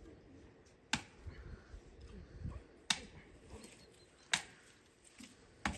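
A long-handled digging tool struck into the ground four times, one sharp blow about every second and a half.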